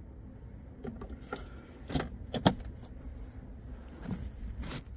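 Several short, sharp plastic clicks and knocks from handling the cabin air filter access cover on a 2018 Subaru Forester, the loudest about two and a half seconds in, over a low steady hum.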